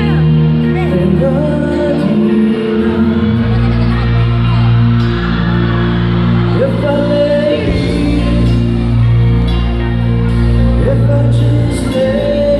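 Live band and male vocalist performing a slow pop-rock ballad through a hall's sound system, heard from among the audience with the hall's echo. Deep bass comes in about three and a half seconds in, and sung phrases rise over held chords.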